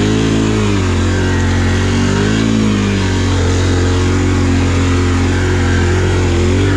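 Can-Am ATV engine running under throttle while the quad churns through deep mud, its revs rising and falling twice in the first few seconds, then holding fairly steady.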